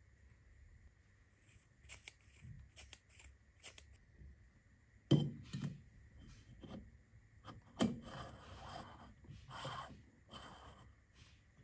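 Small metal parts of an oil can pump being handled and assembled: scattered light clicks, then a sharp knock about halfway through and another a little later. After that comes a run of scraping and rubbing as the pump head is worked onto the can's threaded neck.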